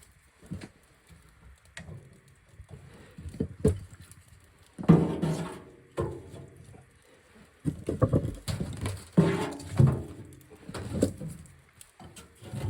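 Split birch firewood being handled and set into a small wood stove's firebox: irregular knocks, clunks and scrapes of wood on wood and metal, busier in the second half.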